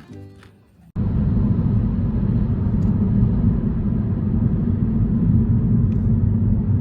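A steady low rumbling noise that starts abruptly about a second in and holds evenly throughout.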